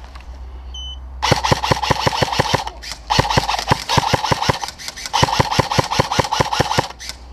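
Airsoft rifle firing on full auto in three bursts of about a second and a half each, about eight or nine shots a second, the mechanism clattering with each shot.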